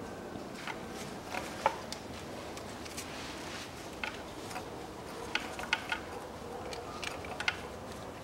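Scattered metallic clicks and clinks of a socket wrench on a 10 mm extended socket as a glow plug is unscrewed from a Range Rover Evoque's 2.2 diesel engine. The clicks come singly and in small quick clusters, the sharpest about a second and a half in.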